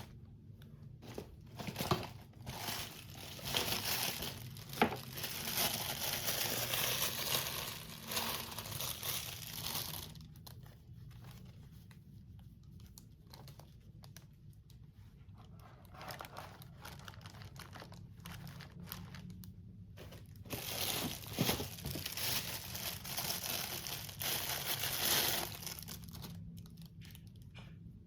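Plastic packaging crinkling and tearing as it is handled and pulled open, in two longer bouts with scattered small clicks and quieter handling between them.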